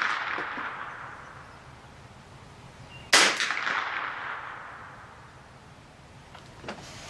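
A single shot from a Glenfield Model 60 semi-automatic .22 rifle firing Federal .22 Long Rifle rounds, about three seconds in, with its echo dying away over about two seconds. The echo of the previous shot fades at the start, and two faint clicks come near the end.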